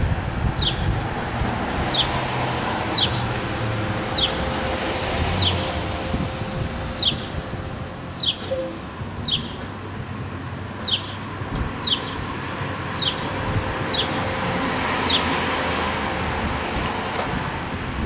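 House sparrow chirping, a short sharp cheep sliding down in pitch about once a second with a couple of brief pauses. Steady street traffic noise runs underneath.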